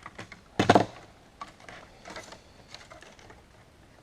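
Small clicks and one short, louder clatter about three-quarters of a second in, from snipping wires off an old office telephone's circuit board and handling its plastic parts; a few faint clicks follow.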